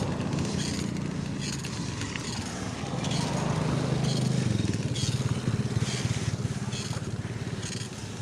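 Motorcycle engine pulling under load on a climb. It gets louder from about three seconds in and eases off toward the end, with repeated short rattles over it.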